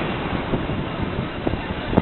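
Aerial fireworks display in the lull between shell bursts: a steady noise of wind and distant crowd, with a few faint firework pops and a sharper pop at the very end.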